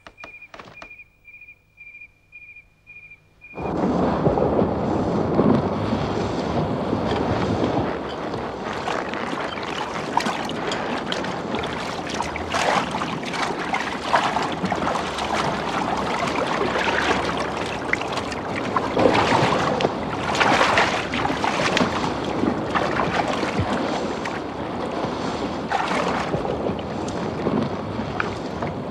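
A river breaking up in the spring thaw: loud rushing water with frequent cracks and crunches of ice floes. It starts suddenly about three and a half seconds in. Before that there is a faint run of short, high, evenly spaced chirps.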